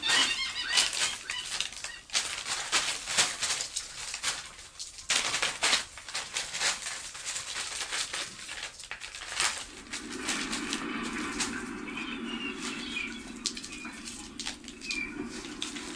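Bird sound effect played back: a dense, rapid flutter of flapping wings, changing about ten seconds in to a steadier low rush with a few short chirping calls.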